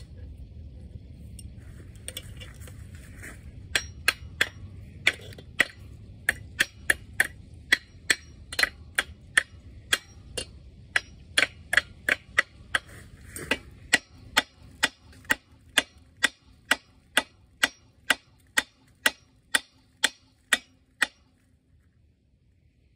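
Hammer blows on metal of an old Wisconsin V4 engine, a steady run of sharp strikes at about two a second, starting a few seconds in and stopping just before the end. The part is being beaten on after it would not turn free.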